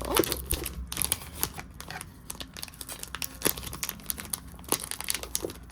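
Packaging crinkling and rustling in the hands as an item is unwrapped, in quick irregular crackles.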